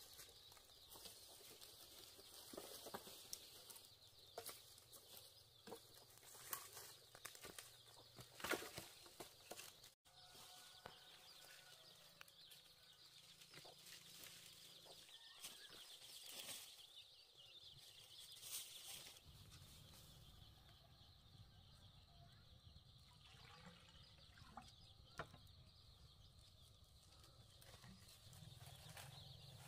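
Faint, scattered knocks and rustles of dry bamboo sticks being picked up and handled, over a quiet steady high hum.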